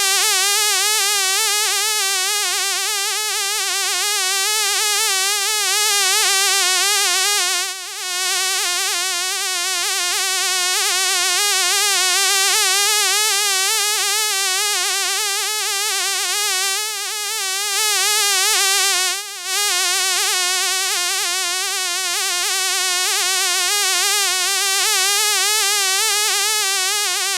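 A fly buzzing in flight: a continuous, wavering buzz that dips briefly twice, about eight seconds in and again near twenty seconds.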